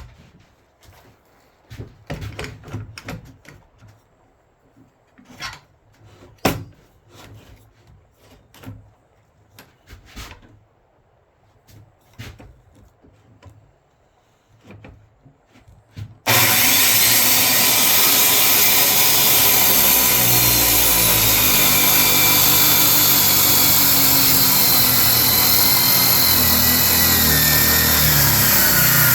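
Light knocks, clicks and rubbing for the first half, then a circular saw starts abruptly about halfway through and runs steadily, cutting through an ash tabletop in a homemade zero-clearance track jig.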